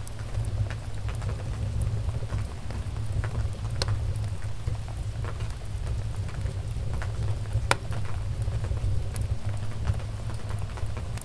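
Wood fire crackling in a fireplace: a steady low rumble of flames with scattered sharp pops, the loudest one a little under 8 seconds in.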